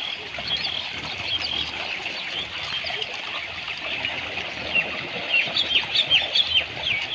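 Small birds chirping over and over in short, quick, falling notes, busier in the last couple of seconds, over a steady background of trickling stream water.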